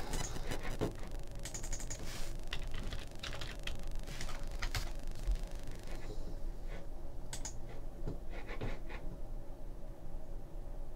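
Typing on a computer keyboard: a run of irregular key clicks, thinning out after about six seconds.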